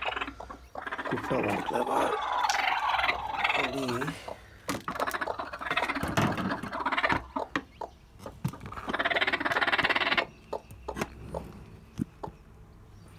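Broody hen sitting on hatching eggs in a straw nest, making low, pulsed grumbling calls in three bouts, with short clicks and rustles of the straw between them.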